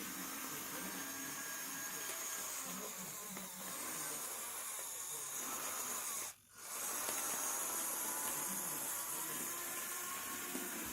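Small electric motors and gearing of a 3D-printed excavator model whirring steadily with a hissy, high whine, cutting out briefly about six and a half seconds in.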